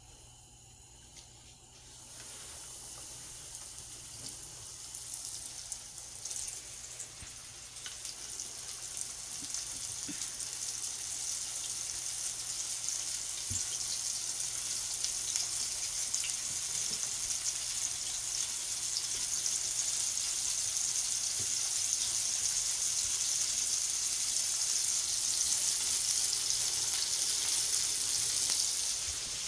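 Hot grease sizzling in a frying pan. It starts about two seconds in and slowly grows louder.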